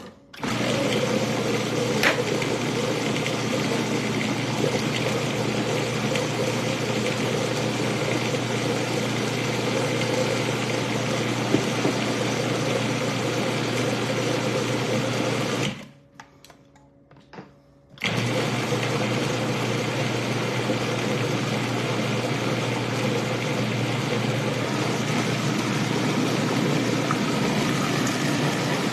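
Electric food processor motor running steadily, pureeing squash and other vegetables. It stops for about two seconds a little past halfway, then starts again.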